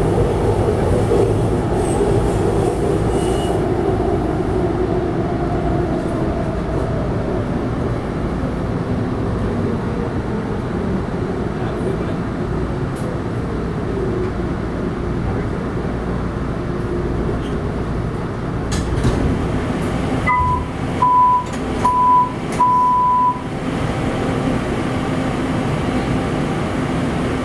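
Tren Urbano metro car's motor whine sliding down in pitch as the train brakes into a station, over the rumble of wheels on rail. About twenty seconds in, the door chime beeps four times, the last beep longer.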